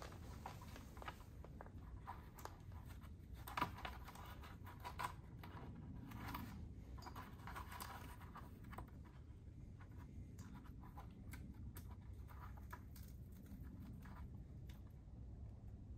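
Faint scratching and rustling of Velcro straps being wrapped around a mountain bike's fork leg and pressed shut to hold a plastic mudguard, with a few light clicks and taps, the sharpest about three and a half and five seconds in, over a low room hum.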